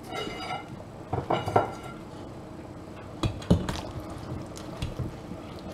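Metal kitchen tongs clinking and knocking against a stainless steel stockpot while lamb shanks are pushed into the liquid. There are brief ringing tones in the first two seconds, then a few sharp knocks about three to five seconds in.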